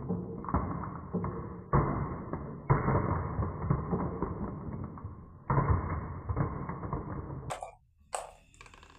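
Marbles rolling and clattering down a wooden marble run, a dull rumble broken by repeated knocks as they drop onto the next track. The rolling cuts off suddenly near the end.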